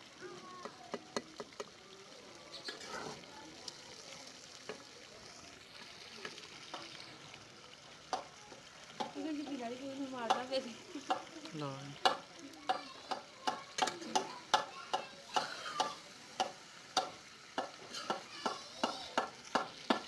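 Metal slotted spatula scraping and knocking against an iron karahi as chicken is stirred in sizzling oil. The strokes become louder and quicker about halfway through, settling to about two a second.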